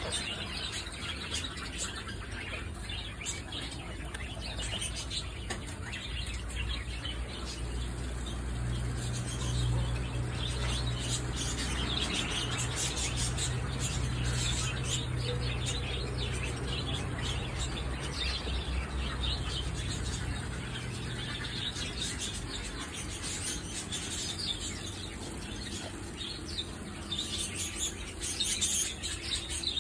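Small birds chirping continually, many quick high chirps overlapping. A low steady hum sits under them from about six seconds in until a little past twenty seconds.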